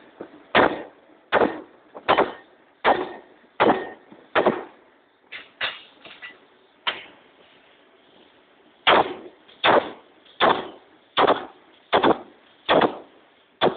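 A 40cwt Massey power hammer strikes a red-hot stainless steel ring in heavy, regular blows about 0.8 s apart. A run of six blows is followed by a few lighter taps, a pause of about two seconds, and another run of seven heavy blows.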